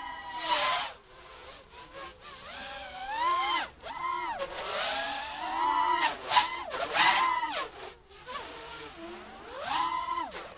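FPV racing quadcopter's 2205 2000kv brushless motors and 5-inch tri-blade props whining, the pitch rising and falling in swoops as the throttle is punched and cut, with several brief drops in sound.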